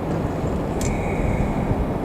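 Freight train rolling past with a steady low rumble; about a second in, a sharp click is followed by a brief high squeal from the wheels or brakes.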